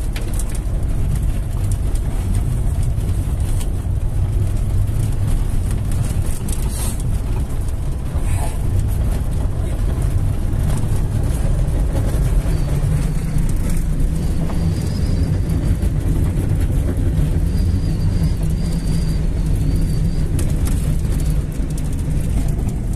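Steady engine and tyre rumble inside a car driving on a dirt road, with a couple of knocks early on and a faint high whistle that comes and goes in the second half.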